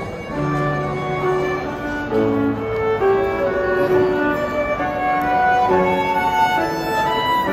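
Live violins with grand piano playing a slow melody of long held notes.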